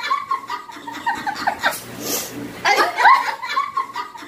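A short clip of high-pitched laughing that repeats itself almost exactly about every three and a half seconds: a looped laugh sound effect.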